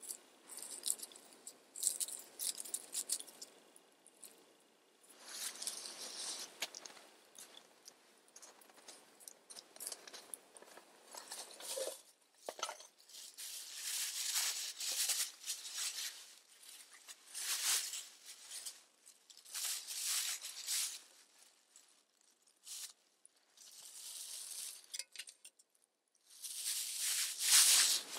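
Irregular crunching and rustling from someone moving about in snow and handling sticks at a small campfire, with a few sharp crackles; the loudest crunching comes near the end.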